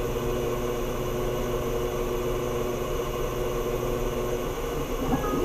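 X2 CNC mill's Z-axis motor and chain drive lowering the tool slowly during an automatic tool-zero probe, a steady mechanical hum with a whine that stops near the end as the tool touches off and finds its zero.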